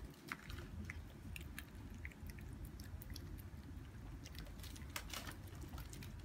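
Toy poodle eating from a bowl: faint, irregular chewing and crunching clicks.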